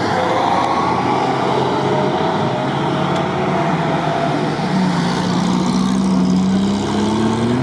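Off-road SUV engine running under load as the vehicle pulls through a muddy course, its pitch climbing steadily over the last few seconds as it revs up.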